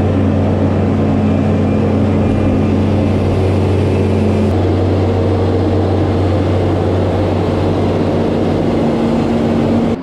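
Bobcat skid steer's diesel engine running steadily at constant speed.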